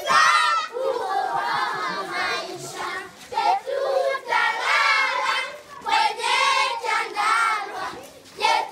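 A group of children singing and chanting together in short phrases with brief breaks between them.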